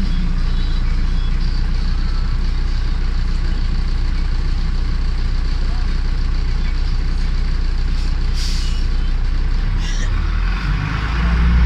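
Cabin noise inside a MAZ 105 city bus under way: a steady engine drone with road noise. Two short hisses come about eight and ten seconds in, and near the end the engine grows louder.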